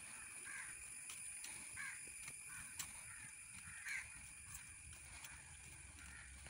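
Crows cawing, a few short faint caws spread over the first four seconds, above a quiet steady background with a constant high-pitched tone.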